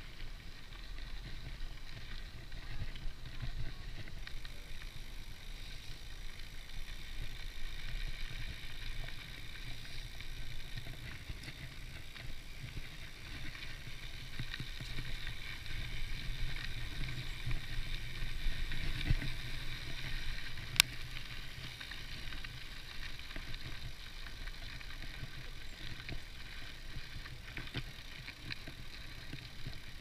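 Hope Pro 4 rear hub's freehub buzzing steadily as the mountain bike coasts, over the rumble of tyres rolling on a gravel path. A single sharp click about two-thirds of the way through.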